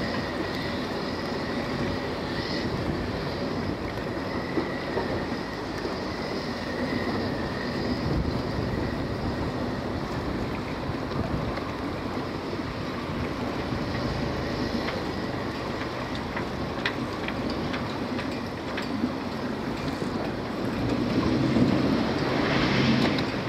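Small boat's motor running steadily under way, a continuous rumble mixed with water and wind noise. It swells louder for a couple of seconds near the end.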